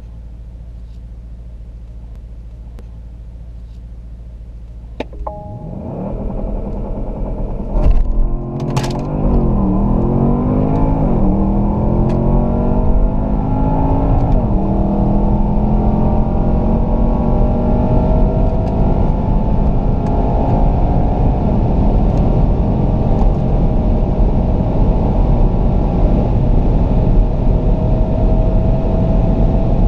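2017 Porsche Panamera Turbo's twin-turbo V8 heard from inside the cabin under full-throttle acceleration. A steady low hum gives way, about five seconds in, to a click and revs building. The engine then pulls hard, its note rising through each gear and dropping back at quick upshifts (several in the first fifteen seconds), then climbing slowly and steadily in a high gear.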